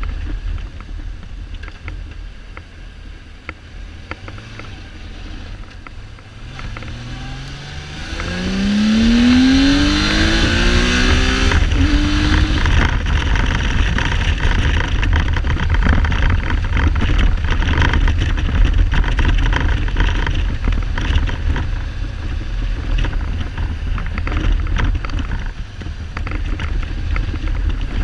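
Kawasaki Z1300 inline-six motorcycle engine under way, its note rising as it accelerates from about seven seconds in, followed by loud wind noise on the microphone at speed. The engine is misfiring and not running on all cylinders, which the owner puts down to the carburettors fouling the spark plugs.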